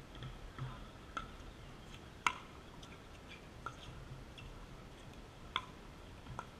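Pickleball rally: a paddle striking the hard plastic ball in a series of sharp pocks a second or two apart, the loudest a little over two seconds in.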